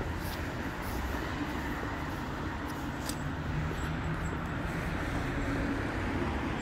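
Steady city street rumble from traffic. A low vehicle hum comes in a couple of seconds in and lasts about four seconds, typical of a tram or heavy vehicle going by.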